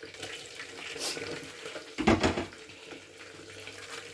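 Water running from a kitchen tap, with a loud clatter about two seconds in.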